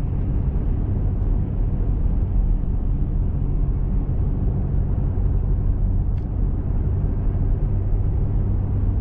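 Car driving at a steady speed, heard from inside the cabin: a constant low rumble of engine and tyre noise with a steady hum.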